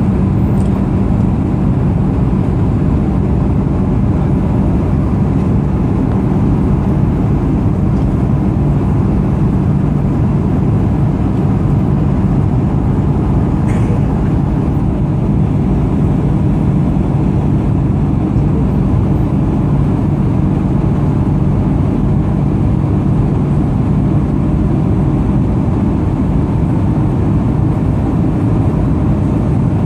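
Steady cabin drone of an Airbus A220-300 in flight: airflow and its Pratt & Whitney PW1500G geared turbofans, a deep even hum with a faint steady higher whine.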